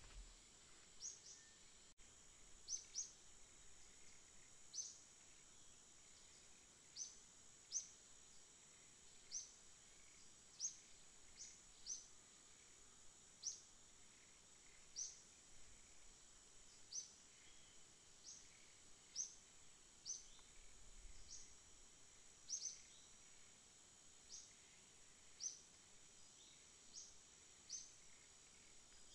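A small bird repeating a short, high, down-slurred chirp about once a second, sometimes doubled, with a steady faint high-pitched tone underneath.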